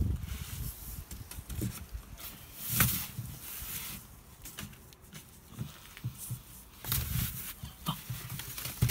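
Handling noise from a padded plastic mailer envelope being slid and handled on a cardboard surface: scattered rustles and light knocks, with a louder rustle about three seconds in.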